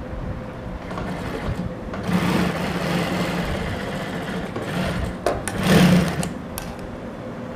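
Industrial sewing machine running, stitching a seam through doubled organza: one longer run of a few seconds, then a shorter, louder burst about six seconds in, with a few sharp clicks around it.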